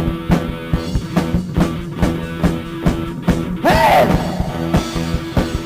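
Rock band playing an instrumental passage: drum kit keeping a steady beat under bass and guitar, with a short swooping pitch bend about two thirds of the way through.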